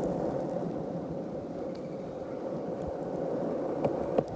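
Longboard rolling on Shark Wheels over rough asphalt: a steady rumble of wheels on the road surface, with a couple of sharp clicks near the end.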